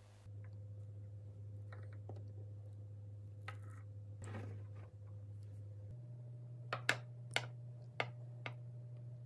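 Metal offset spatula cutting through tiramisu and knocking and scraping against the glass Pyrex baking dish. A few soft clicks and a scrape are followed by a cluster of sharper clicks about seven to eight seconds in, over a faint steady hum.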